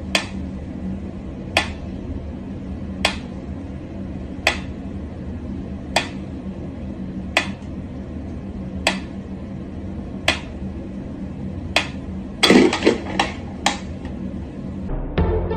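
Mechanical pendulum metronome ticking slowly, one sharp click about every one and a half seconds. About twelve seconds in, a louder clatter of several knocks breaks the ticking, and music begins just before the end.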